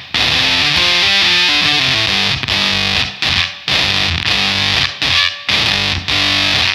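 Electric guitar played through a Wyse Audio Devices Cough Syrup two-transistor fuzz pedal: a fuzzy riff of single notes, cut by a few short stops.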